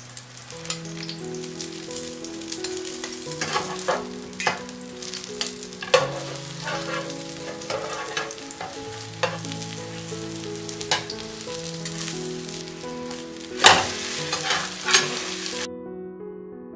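Egg-and-cabbage omelette sizzling in oil in a non-stick frying pan. A metal spatula and spoon scrape and clink against the pan several times, loudest about 14 seconds in.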